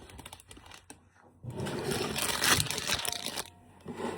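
Plastic food packaging crinkling and rustling as it is handled, with one louder stretch of about two seconds starting about a second and a half in.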